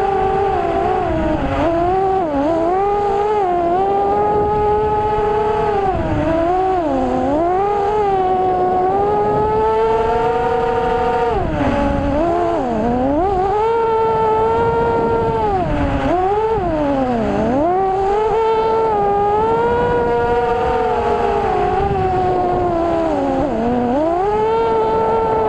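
FPV quadcopter's brushless motors whining, the pitch swooping down and back up again and again as the throttle changes, over a steady rushing noise.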